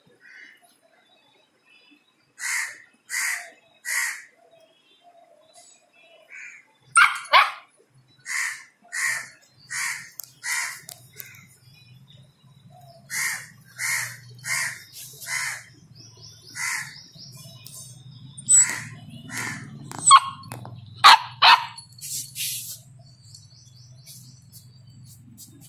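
A crow cawing in repeated runs of three to five short calls, with a few louder sharp puppy yaps about seven seconds in and again around twenty to twenty-one seconds.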